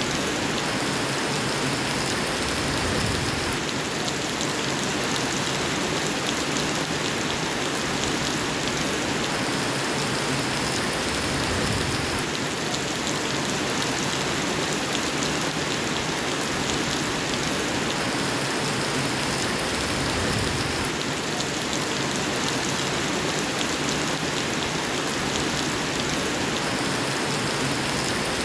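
Steady rain falling on a surface, a dense, even patter without a break.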